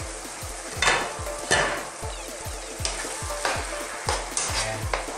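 A metal spoon stirring and scraping through a pan of simmering pork and tomato broth, with the liquid bubbling and sizzling; the loudest scrapes come about one and one and a half seconds in. A low beat repeats about twice a second underneath.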